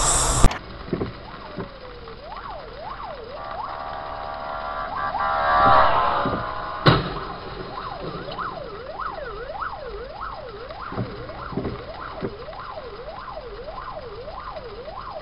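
Emergency vehicle siren yelping, rising and falling about twice a second. A steady tone swells up and breaks off about six seconds in, and there is a single sharp bang about seven seconds in. The first half second is a loud noisy rush that cuts off abruptly.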